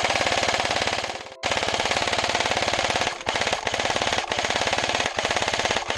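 Airsoft electric gun (AEG) firing on full auto in long, rapid bursts, with a few brief pauses between them.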